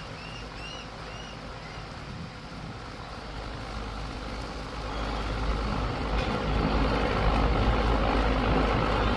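A low rumble that grows steadily louder, with a few short high bird calls in the first second.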